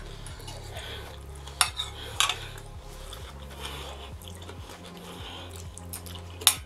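Metal fork clinking and scraping on a plate while cutting into and scooping a stuffed zucchini, with a few sharp clinks about a second and a half in, at two seconds and near the end.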